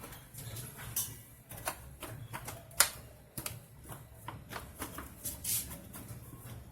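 Irregular small clicks and taps of parts being handled as a TV's main board is fitted back and its cable connectors plugged in, with one sharper click a little before the middle.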